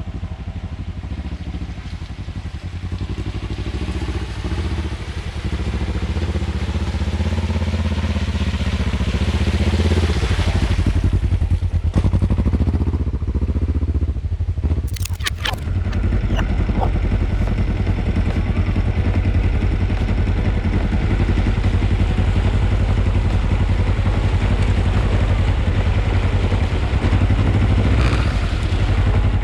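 Kawasaki KLE 500's parallel-twin engine running as the motorcycle is ridden, the revs climbing about a third of the way in and then holding steady. There are a couple of sharp clicks about halfway through.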